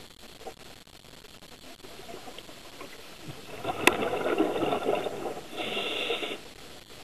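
Scuba regulator breathing heard underwater: a loud rush of exhaled bubbles starting about halfway through, with a sharp click in it, then a shorter, higher hiss near the end.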